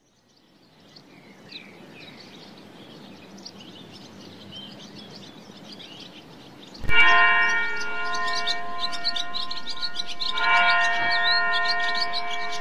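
Birds chirping, fading in softly; about seven seconds in, a loud bell-like chime strikes and rings on in steady overlapping tones, and it is struck again about three seconds later while the chirping continues.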